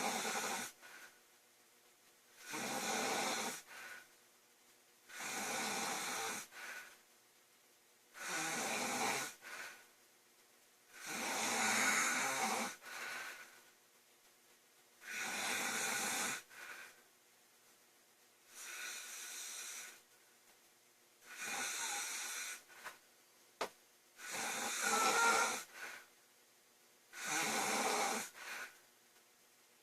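A woman snoring loudly and regularly, about one snore every three seconds. Each snore lasts about a second and trails off in a shorter second puff. A single short click comes about three quarters of the way through.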